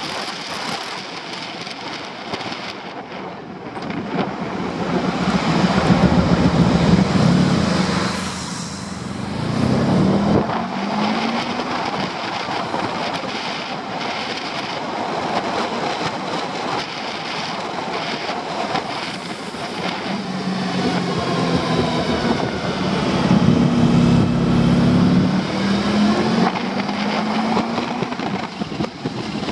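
Wind rushing over the camera on a moving Honda Pan-European 1100 motorcycle, with the bike's V4 engine humming underneath. The engine grows louder and rises in pitch twice, after about five seconds and again after about twenty.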